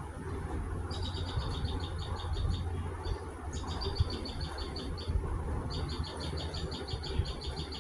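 A woodpecker calling in rattling bouts of rapid, evenly spaced high notes, about eight a second, three bouts each under two seconds long, over a steady low rumble.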